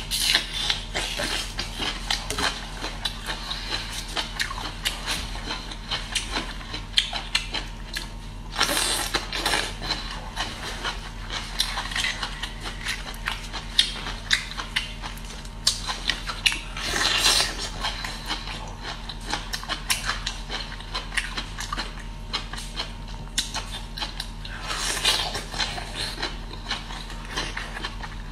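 Close-up eating sounds of bamboo shoots: many small bites, chewing clicks and wet mouth noises, with a few longer tearing sounds as fibrous strips are peeled off a shoot by hand. A steady low hum runs underneath.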